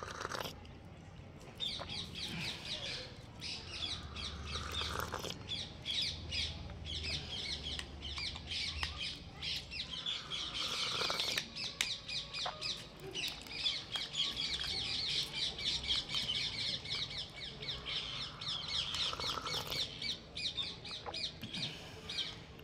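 Birds chattering: a dense, continuous stream of rapid high-pitched chirps that starts about a second and a half in and breaks off near the end.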